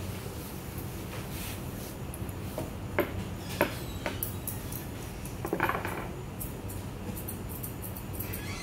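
Grooming scissors snipping through a Pomeranian's coat in short metallic clicks, a few of them sharper and louder, over a steady low hum.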